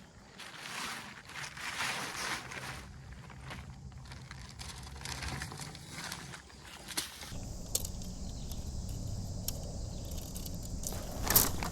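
Irregular footsteps and rustling on the ground. About seven seconds in a steady low rumble sets in, and near the end come a few sharp, louder crunching steps.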